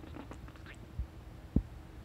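Two short, low thumps about a second apart, the second much louder, after faint rustling at the start.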